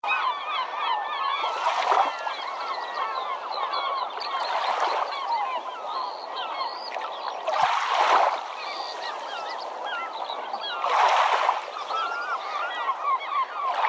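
Many birds calling at once: a dense chatter of short squawks and chirps. A rush of noise swells and fades about every three seconds.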